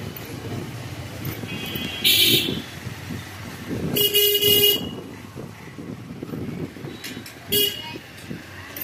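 Vehicle horns tooting three times over steady street traffic noise: a short toot about two seconds in, a longer one about four seconds in, the loudest, and a brief one near the end.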